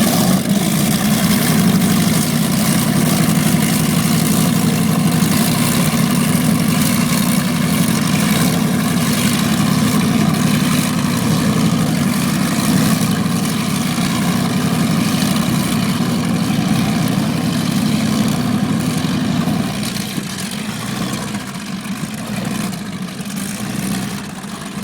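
Apache powerboat's engine running steadily, getting a little quieter about twenty seconds in.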